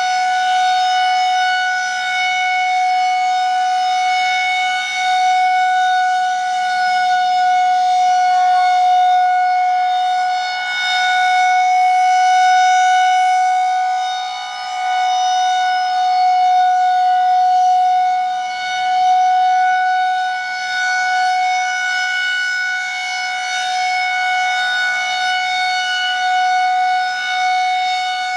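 Federal Signal 2001-130 electromechanical outdoor warning siren sounding the steady Alert signal for a weekly test: one held pitch with no rise or fall. Its loudness swells and fades every few seconds as the rotating siren head sweeps toward and away.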